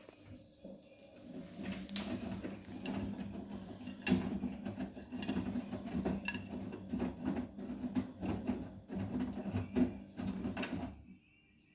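Vestel CMI 97302 washing machine's drum turning during a 70 °C cotton wash: a steady low motor hum with irregular clicks and rattles, which stops near the end.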